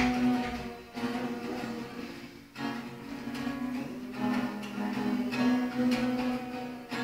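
Acoustic guitar being strummed, its chords ringing on between strokes, with a brief pause about two and a half seconds in.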